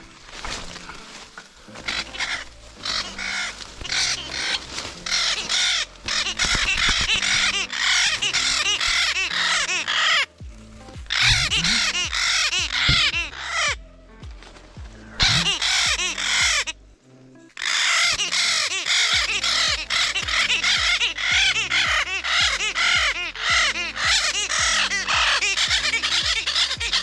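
A parrot squawking loudly and almost without pause, over background music with a steady beat. Everything cuts out briefly three times.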